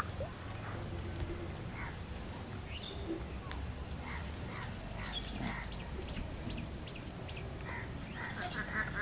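Birds chirping and calling on and off, short scattered calls over a steady low outdoor background, with a quick run of calls near the end.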